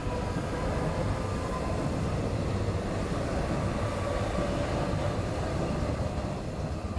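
Seoul Subway Line 4 electric train pulling out of the station and running close past, a steady rumble of wheels on rails with a faint whine on top.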